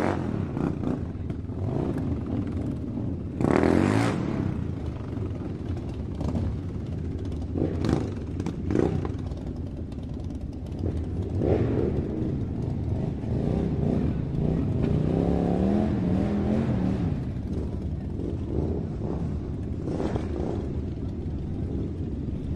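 Toy RC rock crawler's small electric motors and plastic gearbox whirring as it drives over dirt, with a few clattering knocks from the chassis and tyres. The pitch rises and falls as it speeds up and slows down.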